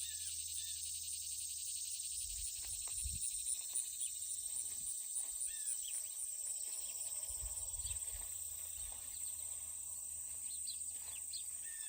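Late-summer insect chorus, a steady high pulsing trill, with scattered short bird chirps over it and a few low thuds.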